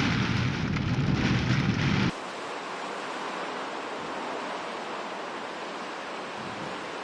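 Hurricane wind and rain, a heavy noise with a deep rumble. About two seconds in it cuts off abruptly to a quieter, thinner hiss of storm wind and rain.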